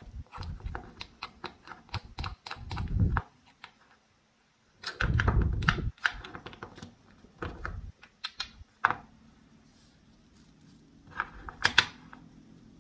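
Wooden toy knife tapping and sawing against a play-food onion on a wooden cutting board: a run of dry wooden clicks, then a denser rasping stretch as the velcro-joined halves are worked apart. Near the end the two halves are set down with a few clacks on the board.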